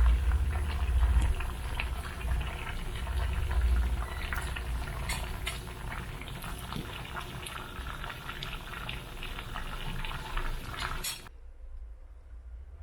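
Food cooking on a stovetop, a steady bubbling hiss with scattered crackles over a low burner rumble, which cuts off suddenly about eleven seconds in.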